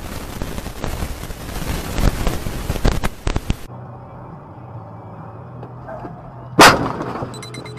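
Dashcam audio: rushing wind and road noise with several sharp knocks, then a quieter steady engine hum inside the cabin. About three seconds before the end comes one very loud bang, a vehicle collision as a turning car is struck, trailing off briefly.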